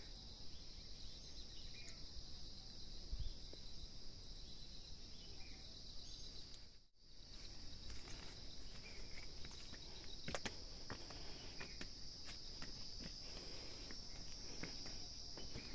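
Steady high-pitched insect chorus of crickets or cicadas, with scattered light clicks in the second half. The sound cuts out briefly about seven seconds in.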